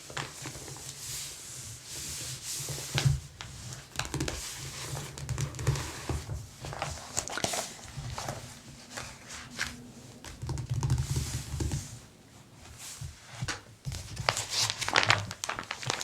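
Paper catalog being handled: its pages rustle and crinkle with scattered soft crackles and taps, close to the microphone.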